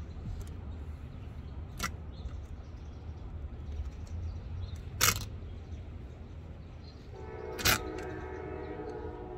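Old upholstery fastenings being pulled from an antique chair frame with pliers: three short sharp snaps, the loudest about five seconds in, over a low steady rumble. From about seven seconds in, a steady horn with several notes sounds and holds.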